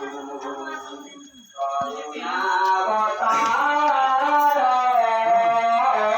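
A voice singing over music. After a brief pause about a second and a half in, the voice holds a long sustained note through most of the second half.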